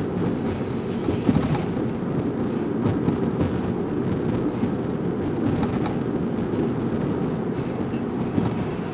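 Road noise heard from inside a moving car's cabin: a steady low noise of engine and tyres on the road.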